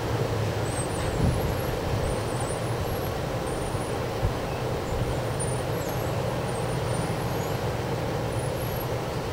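Strong wind blowing across the microphone: a steady low noise with a couple of brief gust thumps.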